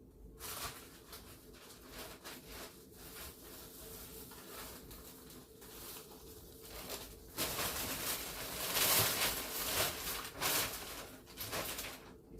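Rustling and scraping of belongings being handled and moved, louder and busier in the second half.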